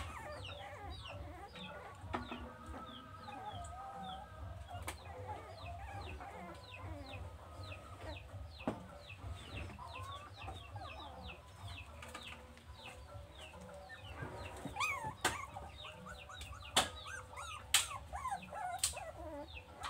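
Chickens clucking and peeping: a steady string of short falling chirps, several a second, with a few sharp knocks in the second half.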